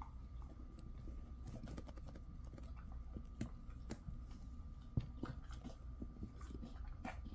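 A Jindo dog chewing a chicken-wrapped sweet pumpkin treat: irregular wet crunching and clicking bites, the sharpest about five seconds in.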